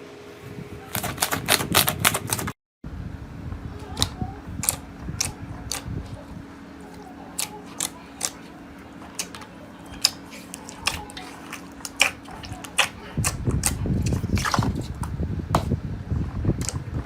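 Slime being squeezed and poked by hand, making sharp separate clicks and pops, with a brief break about three seconds in. The crackling turns denser and louder near the end.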